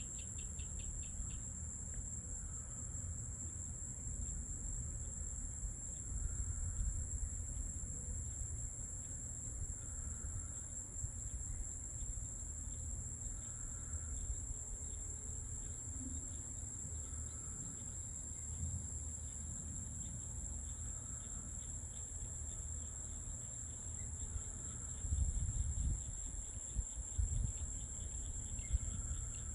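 Steady, high-pitched chorus of night insects, with a faster pulsing trill that comes and goes near the start and end. Under it runs a low rumble that swells a few times near the end.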